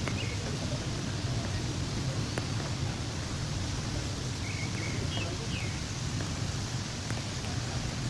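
Steady low outdoor rumble, with a few faint short chirps from a large flock of birds swarming overhead at dusk, right at the start and again about five seconds in.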